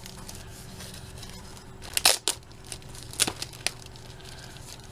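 Packaging being handled: a few short, sharp crinkling and tearing noises, the loudest about two seconds in and another group a little after three seconds, over a faint steady hum.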